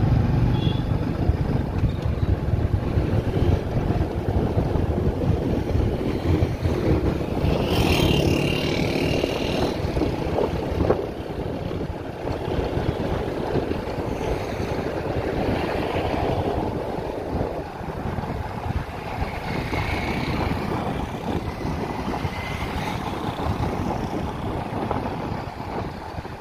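Wind buffeting the microphone over the steady low rumble of a moving vehicle's engine and tyres on the road. A brief louder, higher sound comes about eight seconds in.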